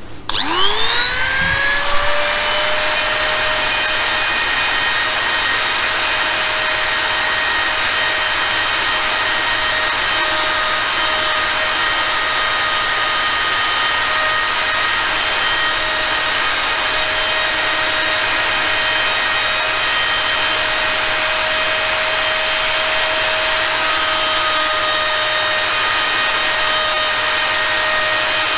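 Handheld rotary tool spinning up with a quickly rising whine, then running steadily at high speed as its small bit sands the ears of a turned wooden cat head.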